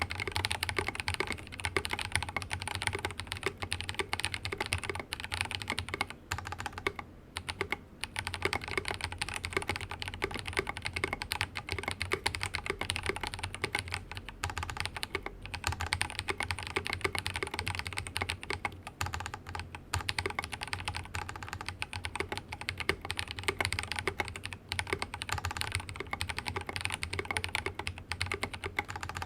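Continuous fast typing on a mechanical keyboard with Drop Invyr Holy Panda tactile switches (R2, housings and legs lightly lubed with 205g0, no films) in a silicone-mounted Rama Works Kara, keyed with ABS keycaps. A dense, steady run of keystrokes with a short lull about seven seconds in.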